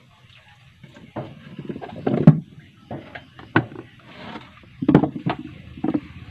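Irregular knocks and thuds of taro corms being handled and set down one at a time on a plastic tray and wooden table, the loudest knock about two seconds in.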